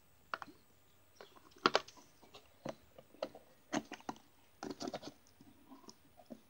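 Slime being squished and gathered by hand into its container: irregular small clicks and squelches.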